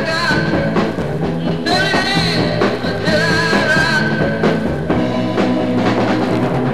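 Rock music with drums and a wavering vocal or lead line.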